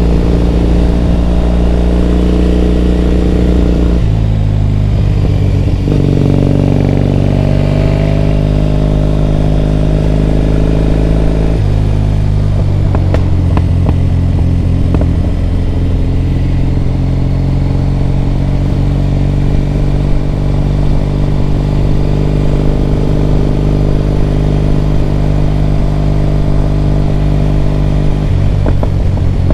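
Triumph Bonneville T100's parallel-twin engine running under way, its note stepping to a new pitch several times with slow climbs in between, as with gear changes.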